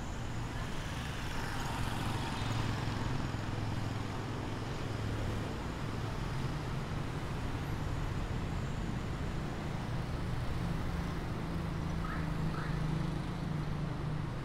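City street traffic: a steady low hum of vehicle engines, with a vehicle passing in the first few seconds.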